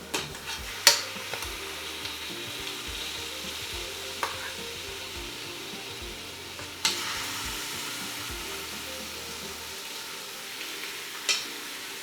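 Raw chicken thighs sizzling as they sear in hot oil with sautéed garlic and onions, a steady frying hiss. Four sharp knocks cut through it, and the sizzle grows a little louder after the third, about seven seconds in.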